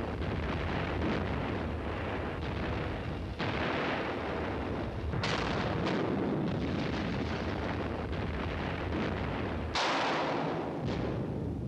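Depth charges exploding around a submarine, heard from inside the hull: a string of sudden blasts, each trailing into a long low rumble, with fresh blasts breaking in about three and a half, five and ten seconds in.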